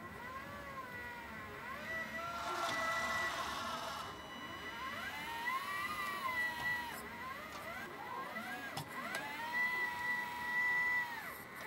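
Hydraulic pump of a 1/14-scale LESU 945 RC excavator whining in a series of rising-and-falling surges, each a second or two long, as the boom, arm and bucket are worked. There is a brief click near the end.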